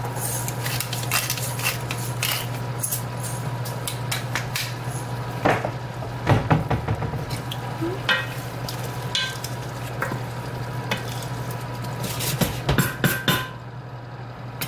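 A spoon stirring thick white bean chili in a stainless steel stockpot: wet stirring with scrapes and knocks of the spoon against the pot, heaviest about six seconds in and again near the end. A steady low hum runs underneath.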